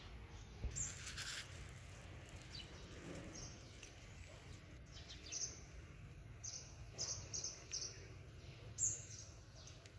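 Faint background of small birds chirping, with short, high chirps coming several times in the second half, over a low steady outdoor hum.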